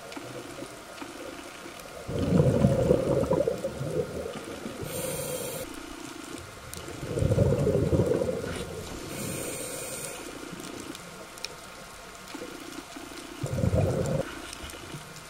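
Scuba diver breathing through a regulator underwater: three loud gushes of exhaled bubbles, about 2, 7 and 13.5 seconds in, with a short hiss of inhalation between them, over a faint steady hum.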